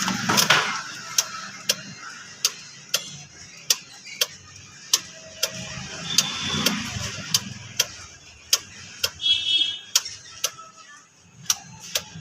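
Suzuki Celerio's indicator flasher relay ticking steadily, about one and a half clicks a second with alternating short and long gaps, as the indicators blink. A short high beep sounds near three quarters of the way through.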